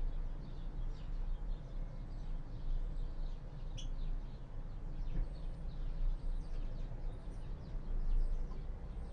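Caged finches giving short, faint high chirps now and then, one louder chirp about four seconds in, over a steady low rumble.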